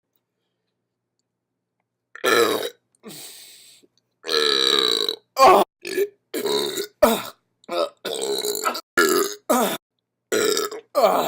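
A person burping over and over: about a dozen separate burps of varying length and pitch, some long and drawn out, others short, with complete silence between them. The first comes about two seconds in.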